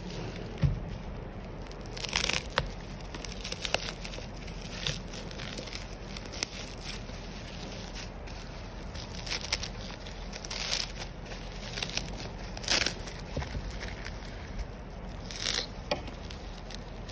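Plastic packaging crinkling and rustling in irregular bursts as a bubble-wrapped screen and a plastic courier mailer are handled.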